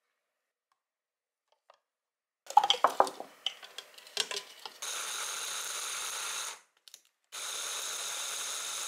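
Clattering and knocking as beef cubes and vegetables are tipped into a plastic chopper bowl, then a Lacuzin hand blender with its chopper attachment runs in two pulses of about two seconds each, a steady whir, mincing the beef.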